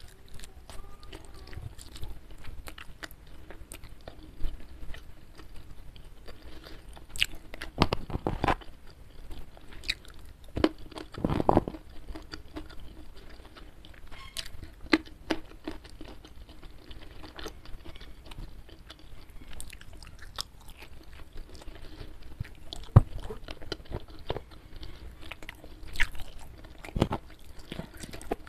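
Close-miked chewing of a hand-eaten rice meal with fried chicken and raw vegetables. Steady mouth clicks are broken by a few louder crunching bites.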